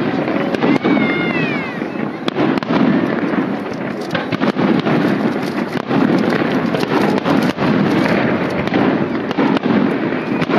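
Aerial fireworks shells bursting in the sky, a continuous run of many sharp bangs one after another.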